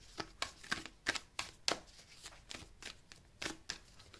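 Tarot cards being shuffled and handled in the hands: a run of short, crisp card slaps and flicks, irregular, about three a second.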